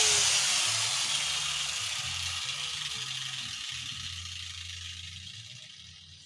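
Angle grinder switched off after grinding a weld joint on a steel tube frame, its disc coasting down: a whirring hiss that fades steadily over about six seconds, with a faint falling pitch, until it dies away near the end.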